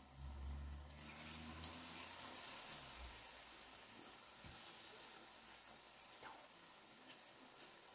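Faint sizzle of vegetable fritter batter shallow-frying in hot oil in a pan, growing stronger about a second in as a second fritter goes into the oil, with scattered small crackles and pops.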